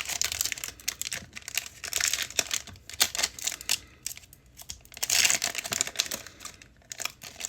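Foil trading-card pack wrapper crinkling as it is torn open and handled, a dense crackling rustle with two louder stretches, about two seconds in and again about five seconds in.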